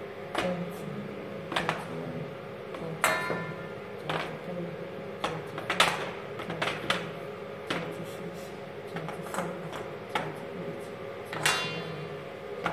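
Irregular clicks and knocks, about one a second, of hard wrapped cocaine pellets being handled and set down on a cloth-covered table. Two of the knocks, about three seconds in and near the end, ring briefly, like pellets striking a stainless steel bowl.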